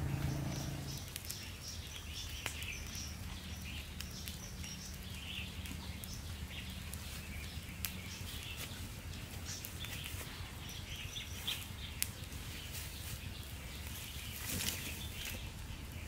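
Outdoor ambience of birds chirping, with a few sharp crackles and snaps from a small campfire of dry leaves and sticks.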